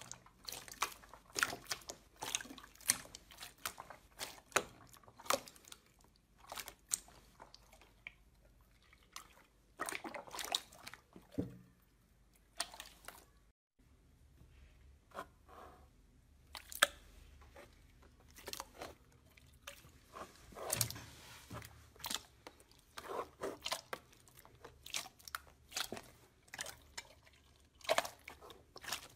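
Hands squeezing and pressing slime, giving a stream of wet clicking, popping and squelching sounds. The sound breaks off briefly about halfway through, then resumes with fingers poking and pressing a second, clearer slime with the same sticky pops.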